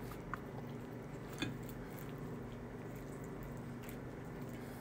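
A fork flaking a cooked salmon fillet on a ceramic plate, with two faint clicks of the fork against the plate in the first second and a half, over a low steady hum.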